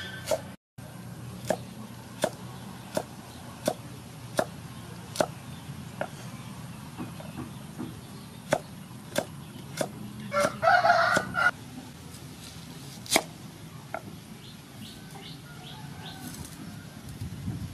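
Cleaver chopping carrot on a wooden chopping board, a sharp knock about every three quarters of a second. A rooster crows once partway through.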